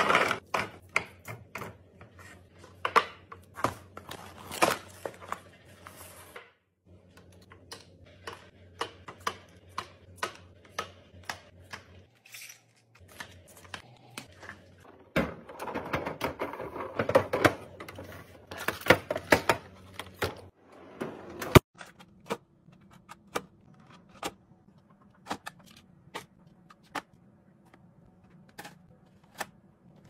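Irregular clicks, taps and light knocks of packaged snacks, drink bottles and eggs being set into clear plastic organizer bins and trays, coming in busy clusters with quieter gaps. One sharp click a little past two-thirds of the way through stands out.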